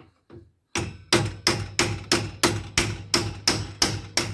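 A steady series of hammer blows on a front suspension part, about three a second, starting about a second in. The part is stuck and moving only marginally under the blows.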